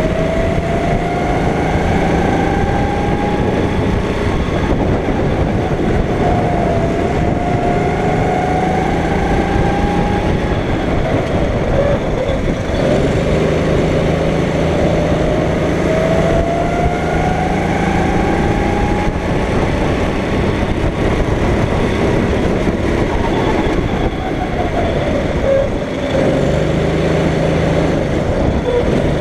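Go-kart engine running on track, its pitch climbing steadily over several seconds three times as it accelerates and dropping back between climbs as it slows for corners, over a constant rush of noise.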